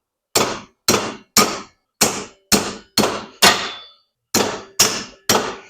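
A hammer striking a long nail used as a punch against a rubber bushing in a steel motor cradle. There are about ten sharp metallic blows at roughly two a second, each with a short ring, and a brief pause about four seconds in. The bushing is stuck and does not budge.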